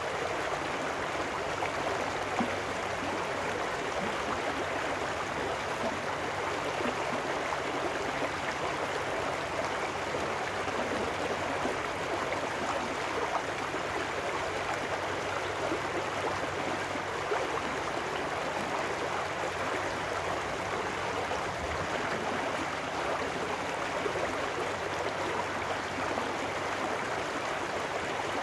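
Small trout stream rushing and splashing over rocks where it spills out from under a concrete culvert: a steady, even water sound.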